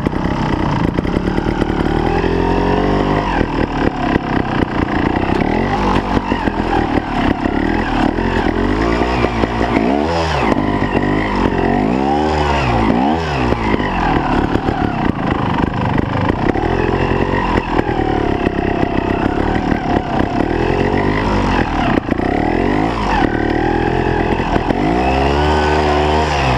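Trials motorcycle engine running close up under the rider's throttle, revving and falling back in repeated blips as it picks along a snowy section. A run of quick, sharp revs comes about ten to thirteen seconds in, and another near the end.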